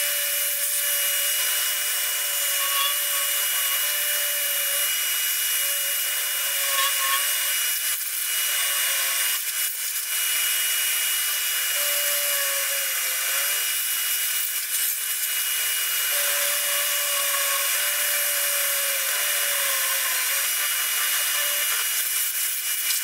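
Milling machine spindle running an end mill through steel, plunging and traversing in a slot cut. A steady high whine runs throughout, and a lower cutting tone comes and goes as the cutter bites. The cut is run dry without coolant, and it burned up the end mill.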